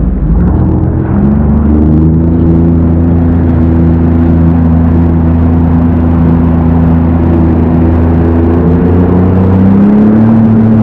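Jet ski engine revving up about a second in, then running steadily at speed with water spray hissing under the hull. The engine pitch rises and dips briefly near the end.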